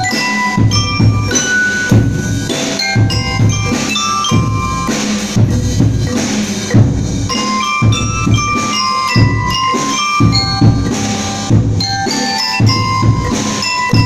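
Marimba ensemble playing a Christmas tune in quick mallet notes over a steady drum beat.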